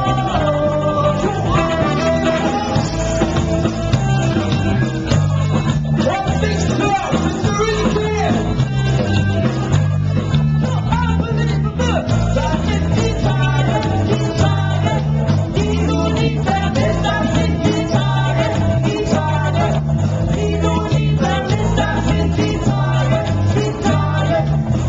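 A live band playing loud music with a lead singer, over electric guitar and a steady repeating bass line.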